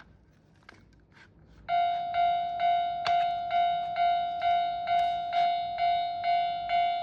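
Electronic crossing-bell alarm of a toy Japanese railroad crossing (fumikiri) playing through its small speaker. It starts about a second and a half in: a repeating 'kan-kan' bell tone struck about twice a second, each strike ringing and fading before the next. It signals that the crossing gates are coming down. A few faint clicks come before the alarm starts.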